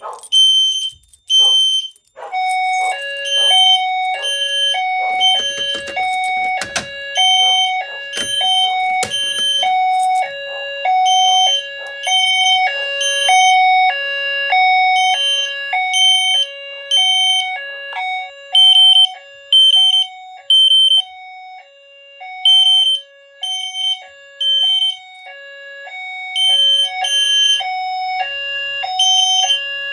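System Sensor fire alarm notification appliances sounding in alarm after a manual pull station is pulled. A repeated high-pitched beep is joined, about two seconds in, by a continuous alternating two-note high-low tone pattern. There are a few knocks and clatters between about five and ten seconds in.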